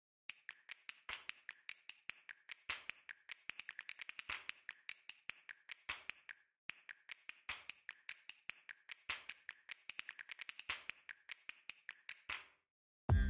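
Rapid, irregular run of sharp finger-snap-like clicks and taps with dead silence between them, a sparse percussion passage of the background music. It breaks off briefly about halfway, and a heavy bass beat comes in right at the end.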